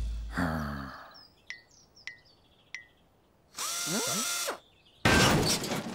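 Cartoon mechanical sound effects: three quick, light clicks, then a second-long whirr that winds down in pitch, then a louder noisy burst near the end.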